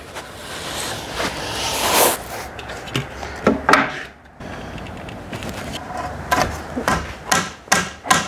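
Scattered knocks and scraping of timber being handled: a new wooden garage door frame post being set in place against brickwork.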